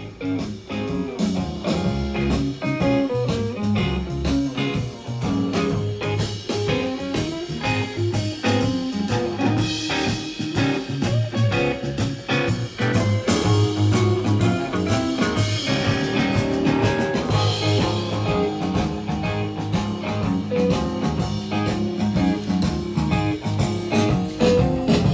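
Music with guitar and a steady beat, played from a vinyl record through a pair of Nuance bookshelf speakers, each with an 8-inch woofer and a tweeter, during a listening test of the speakers.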